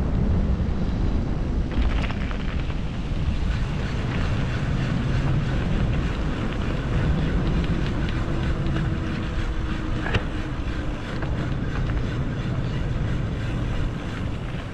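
Steady wind rush on a moving camera's microphone, heaviest in the low end, with a couple of light clicks about two seconds and ten seconds in.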